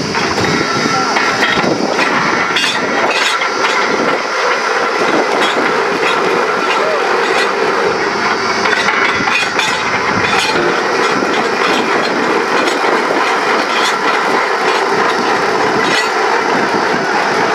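Truck-mounted borewell drilling rig running loud and steady as the drill rod goes down into the borehole, with continual metallic clatter throughout.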